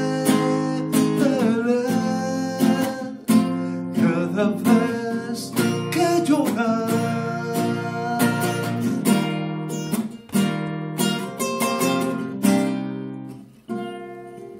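Acoustic classical guitar played as an instrumental interlude: strummed chords with picked bass notes in a steady ballad rhythm.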